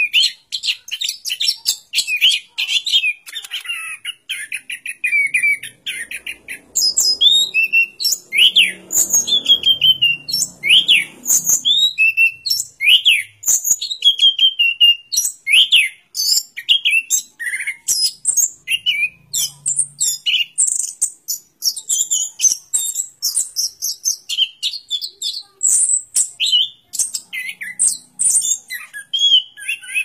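Caged chestnut-capped thrush (anis kembang) singing a long, varied song without pause. It opens with a fast run of rapid chirps, then moves into sharp whistles that rise and fall, mixed with quick twittering notes.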